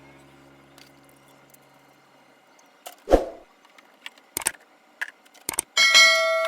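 Metal tools and parts being handled: a few sharp knocks and clicks, then a piece of metal clanging and ringing near the end.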